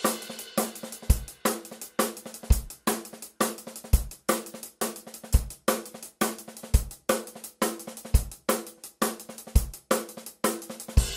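Intro music: a steady drum-kit beat of kick drum, snare, hi-hat and cymbals, with a held note underneath.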